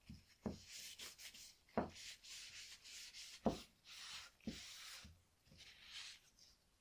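Repeated hand-abrasive rubbing strokes, like sanding or scrubbing, about one every half second to second, broken by a few light knocks.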